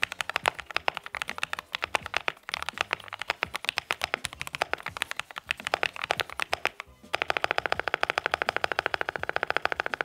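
Typing on a 40% custom mechanical keyboard with lubed Hippo switches on a carbon fiber plate, a soft yet clacky sound. Fast, uneven keystrokes run for about seven seconds, then give way to a quick, even run of about ten strokes a second.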